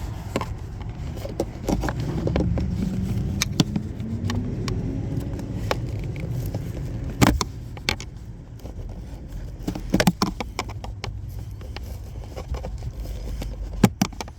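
Scattered sharp plastic clicks and knocks as the glove-box trim and cabin air filter housing of a 2020 Infiniti QX60 are worked on by hand, over a steady low vehicle rumble.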